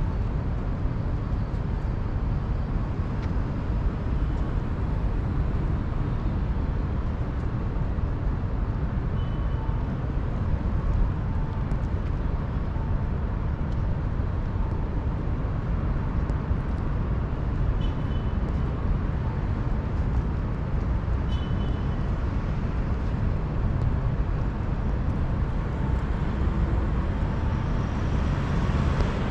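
Steady outdoor city ambience, mostly a low traffic rumble, with a few faint short high tones now and then.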